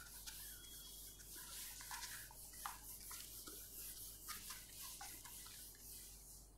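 Whiteboard eraser wiping marker off a whiteboard, faint, in quick repeated rubbing strokes.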